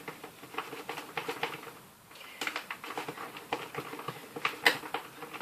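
Glue and shaving-foam slime mixture being stirred in a container, giving irregular sticky clicks and squelches, with a brief lull about two seconds in.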